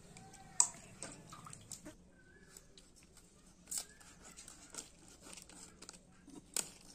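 Small fish being handled and cut with a blade over a plate of dry leaves: faint scattered taps, scrapes and leaf crinkles, with a few sharper clicks spread through.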